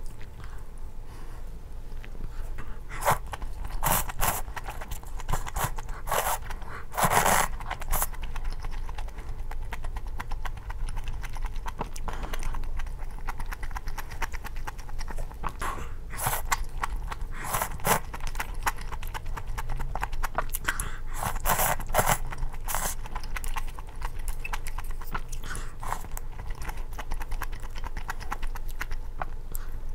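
A person eating malatang noodles: several noisy slurps of noodles a few seconds apart, the longest about seven seconds in, with chewing between them.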